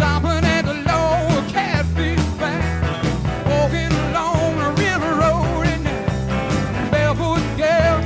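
Rock music soundtrack with a wavering lead melody over repeating bass notes and a steady beat.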